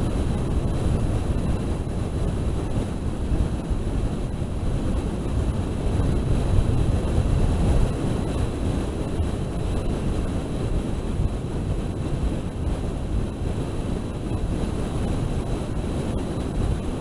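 Wind buffeting the onboard camera microphone of an FPV model aircraft in flight: a steady low rumbling rush, with a faint steady high whine underneath.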